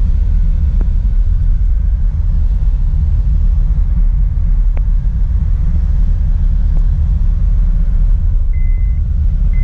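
Steady low rumble of road and engine noise inside a moving car's cabin, with a few faint clicks. Near the end a high steady electronic beep sounds once and starts again.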